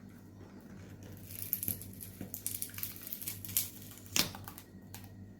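iPhone 6 battery being pried out of its housing against old, deteriorated adhesive: a run of small scraping, crackling clicks, with one sharper click about four seconds in.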